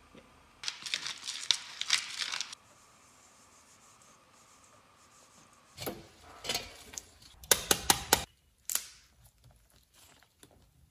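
Dried oregano leaves shaken from a spice jar into a stainless steel mixing bowl, a couple of seconds of quick rattling shakes. Later comes a few seconds of kitchen handling noise, rustling with several sharp clicks and knocks.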